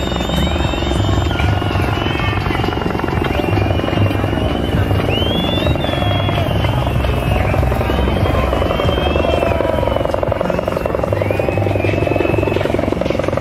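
A helicopter's rotor thrum holds steady over a crowd, with many high calls rising and falling above it.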